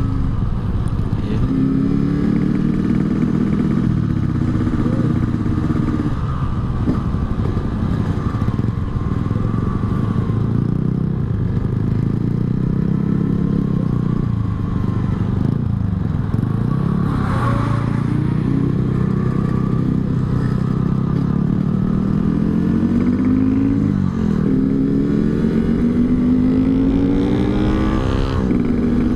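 Yamaha RX-King two-stroke single-cylinder motorcycle with an aftermarket Altec C20 exhaust, ridden on the road: the engine pitch climbs and drops several times as it is revved through the gears, with a long climb near the end.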